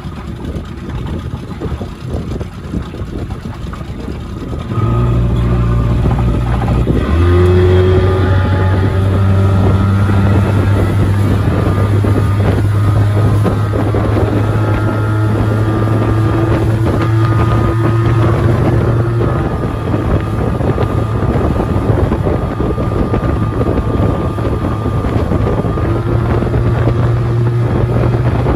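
Outboard motor pushing a small Terhi 415 open boat along at speed, running steadily, with wind and water rushing past. The engine gets suddenly louder about five seconds in and holds a steady note after that.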